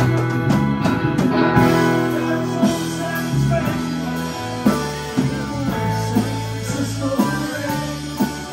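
Live rock band playing an instrumental passage, electric guitar to the fore over electric bass, keyboard, drum kit and congas.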